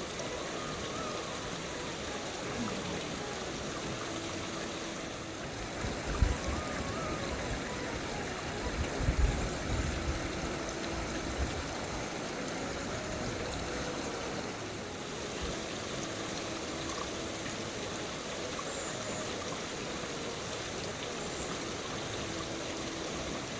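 Steady rush of a flowing stream, with a couple of brief low bumps about six and nine seconds in.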